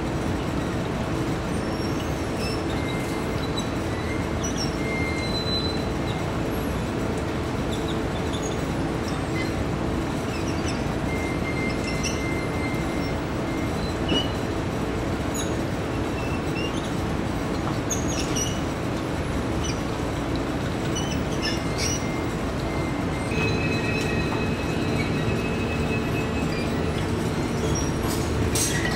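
Steady mechanical running noise of workshop machinery: a constant hum with a few brief, high squeaks scattered through it.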